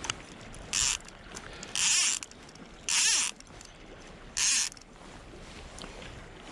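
A fly reel's click ratchet buzzing in four short pulls about a second apart as line is drawn off it by hand, over the steady wash of the river.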